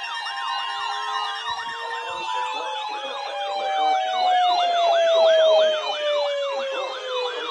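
Several sirens sounding at once: fast rising-and-falling yelp tones over a long wailing tone that slides slowly down in pitch, loudest about halfway through.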